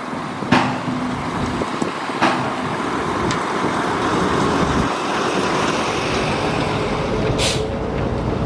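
Diesel engine of heavy construction machinery running steadily, with a couple of sharp metallic clanks and a short burst of hissing air near the end.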